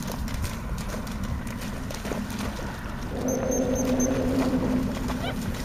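A dog running and splashing through shallow marsh water, its paws churning the water, over wind rumble on the microphone. A steady low hum comes in about three seconds in.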